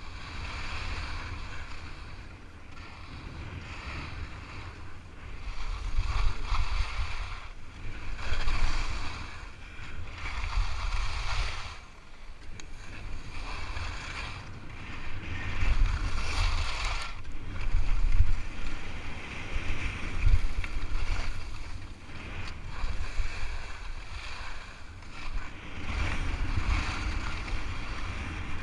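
Skis turning on packed snow, a scraping swish that swells and fades about every two seconds with the turns, over a steady low rumble of wind buffeting the camera microphone.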